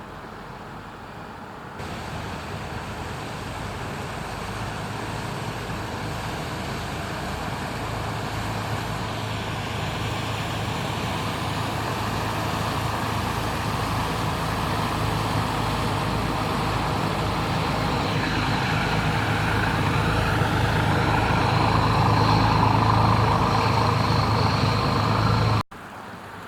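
Patrol boat's engines running with a steady low hum, growing steadily louder as the boat draws closer, then cutting off abruptly near the end.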